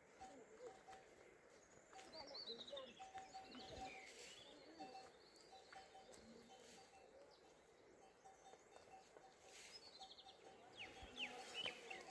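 Faint birds chirping, with short sweeping calls scattered throughout and clustering near the end.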